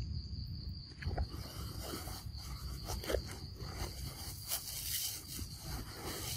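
Outdoor forest ambience: a steady high-pitched insect drone over a low rumble, with scattered soft rustles and scrapes.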